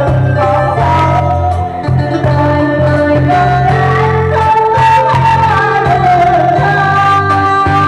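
A woman singing into a microphone over electronic keyboard accompaniment with a steady bass beat, all played loud through a PA system. Her held notes slide down in pitch about five seconds in.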